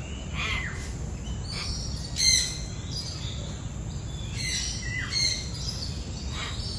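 Birds calling: short chirps and quick falling calls, the loudest a little over two seconds in, over steady low background noise.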